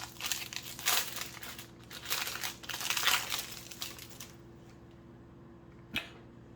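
Foil trading-card pack wrapper crinkling as it is torn open and handled, for about four seconds. A single sharp tap follows about six seconds in.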